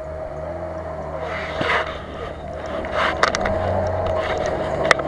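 Lada Niva 4x4 engine running at low revs as it crawls off-road. Sharp clicks and cracks come in the second half.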